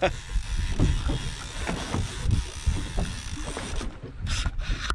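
Wind buffeting the microphone on an open boat, an irregular low rumble with thumps under a steady hiss. A short burst of hiss comes near the end.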